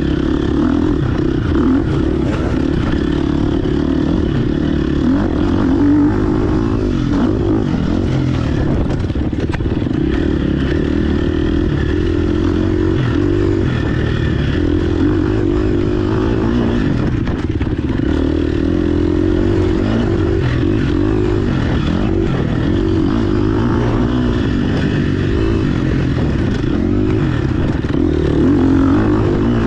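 GasGas EX 250F dirt bike's single-cylinder four-stroke engine running hard, its pitch rising and falling constantly as the throttle opens and closes.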